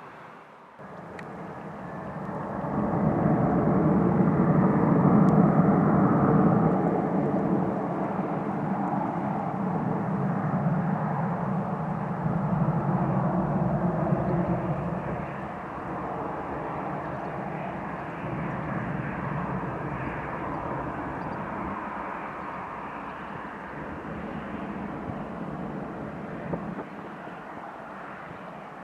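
Jet airliner engines running as the aircraft taxis past. The rumble swells over the first few seconds, is loudest around five seconds in, then slowly fades.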